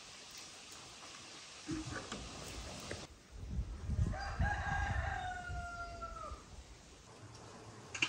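A rooster crows once, a long call of about three seconds that dips in pitch as it trails off, with a low rumble underneath. A few faint knocks come before it.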